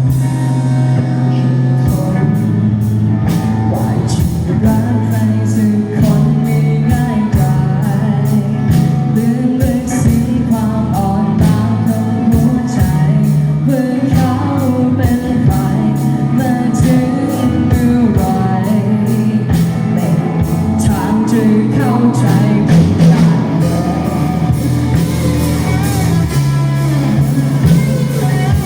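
Rock music: a band playing with drum kit and guitar to a steady beat, with a singing voice over it.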